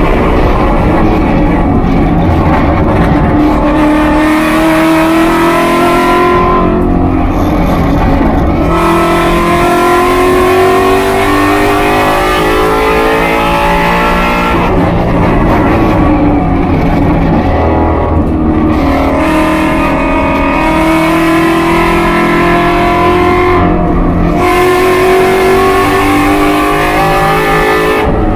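Race car's engine heard from inside the cockpit, running at high revs with its pitch climbing steadily under acceleration. Three times the sound thins out and the pitch drops away as the throttle is lifted for a corner: about a quarter of the way in, about halfway, and near the end. A constant rush of wind and road noise lies underneath.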